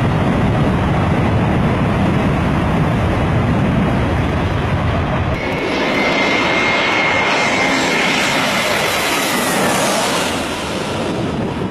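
Jet airliner engines at high power, a loud low rumble. About five seconds in it gives way to another jet airliner passing low on its landing approach: a high engine whine that slides slightly lower as it goes by, over a loud rushing noise.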